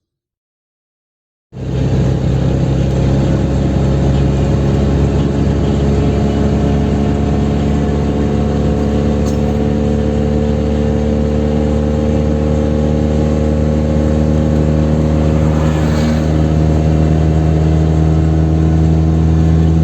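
Chevrolet Kadett 1.8's four-cylinder engine pulling hard at high speed, starting suddenly about a second and a half in. Its pitch creeps slowly upward as the car gains speed.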